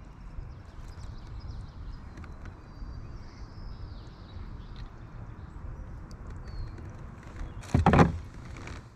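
Kayak-borne outdoor sound: a steady low rumble with faint thin high calls, then a short loud rush of noise about eight seconds in.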